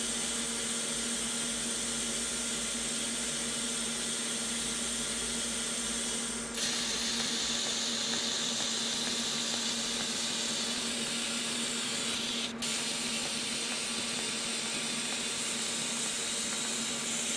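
TIG welding arc on stainless steel: a steady hiss with a low hum underneath, briefly breaking about six and twelve seconds in.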